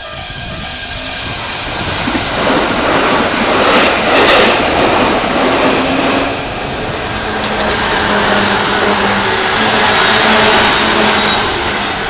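Electric trains running past close by at speed, a Keikyu 1500-series among them: a steady rush and rumble of wheels on rail that swells about four seconds in, eases briefly, then swells again near the end.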